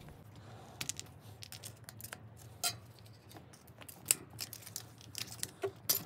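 Irregular light metallic clicks and clinks from the rear sprocket and its retaining clip being worked off a bicycle internal gear hub, the sharpest about four seconds in and near the end.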